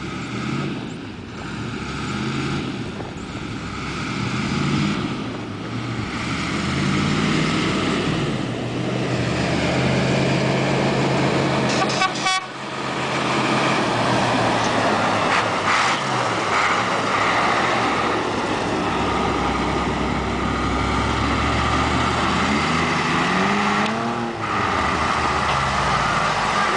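Engine started up and then running, getting louder over the first several seconds, its pitch shifting up and down as it runs.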